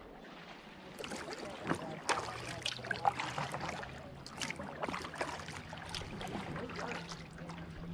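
Kayak paddle strokes in calm river water: quick, irregular splashes and drips off the paddle blades, starting about a second in. A low steady hum runs underneath from about two seconds in.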